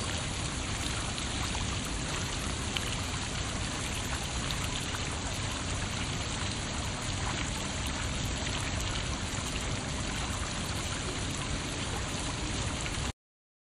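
Steady, even rushing noise with no distinct events, cutting off abruptly near the end.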